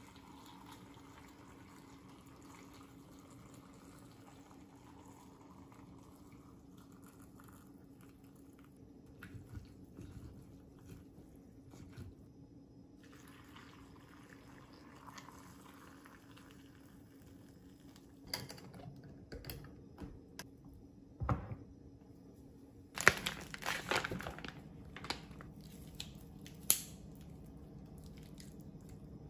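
Kitchen handling sounds over a steady low hum: soft liquid and rustling noises at first, then a run of sharp knocks and clatters in the last third.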